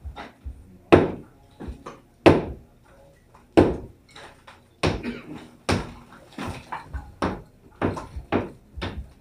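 Sledgehammer blows into a painted masonry wall being demolished, a sharp strike about every second or so with smaller knocks of breaking pieces between them.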